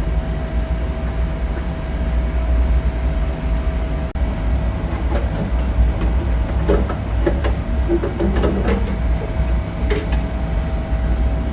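A steady low mechanical rumble with a constant hum, and scattered light clicks and knocks in the second half.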